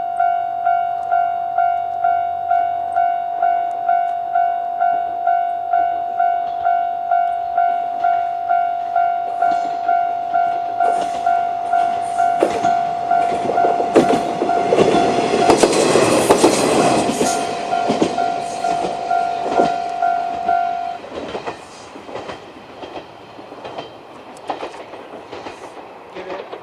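Japanese level-crossing alarm ringing a steady electronic ding about twice a second while an Isumi 300 diesel railcar passes over the crossing. The railcar's running noise and wheel clicks over the rail joints build up and are loudest near the middle. The alarm stops about three-quarters of the way through, leaving the railcar's clatter fading away.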